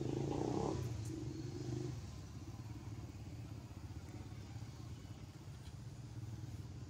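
A small engine running with a steady low drone. It is louder for the first two seconds, then drops and carries on more faintly.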